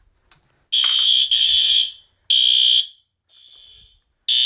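System Sensor fire alarm horn strobes sounding in alarm, set off by a detector test: loud, high-pitched horn blasts of about half a second with short gaps, one of them fainter, from a second horn.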